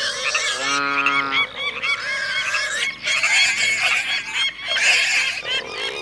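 Cartoon sound effect of a flock of birds calling over one another in short, repeated calls, with one longer, lower call about a second in.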